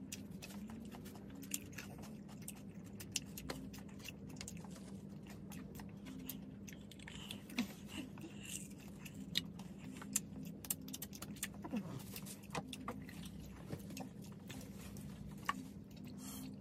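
Close-up chewing and biting of French fries, with many short sharp mouth clicks scattered throughout, over a steady low hum.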